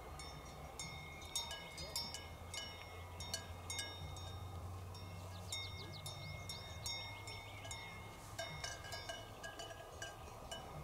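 Cowbells on grazing cows clanking irregularly, several bells ringing at different pitches, each stroke ringing on briefly.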